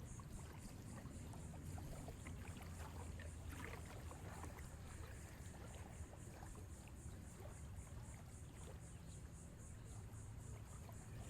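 Faint ambience of gentle ocean waves and water, with a faint high pulsing about three to four times a second.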